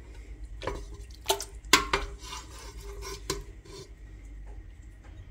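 Wooden spoon stirring in a stainless-steel pot of thick stew, with several sharp knocks of the spoon against the pot.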